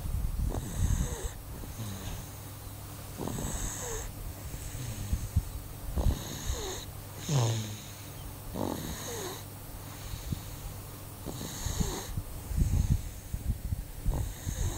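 A person snoring, one breath every two to three seconds, each with a low rattling rumble and a hiss.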